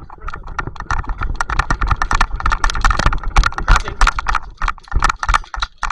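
A fast, irregular run of clicks and knocks with low thumps underneath.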